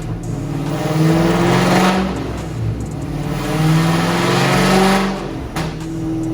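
Camaro ZL1's supercharged V8 revving repeatedly, each rev climbing in pitch for a second or two and then dropping back, before settling to a steady pitch near the end. The engine has a misfire on cylinder 7.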